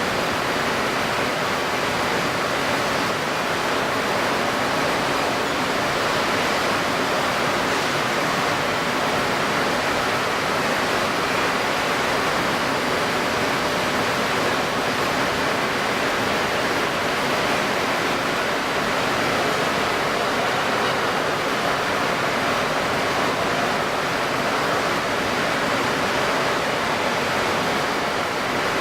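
Steady rushing of strong wind and wind-stirred water, even and unbroken throughout, sped up to 1.75 times normal speed.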